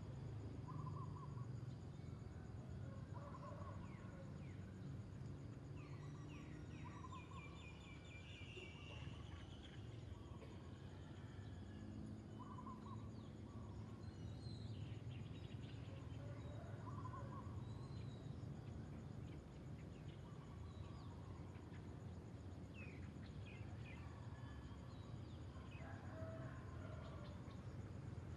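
Faint outdoor ambience: a steady low rumble under short chirping calls of birds and insects, repeating every second or two.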